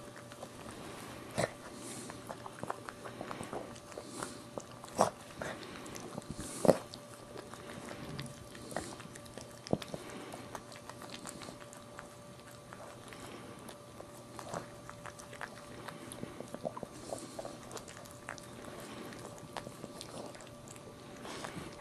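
Maltese mother dog licking and nuzzling her newborn puppy: a string of wet licks and mouth smacks, two of them louder about five and seven seconds in. A faint steady hum runs underneath.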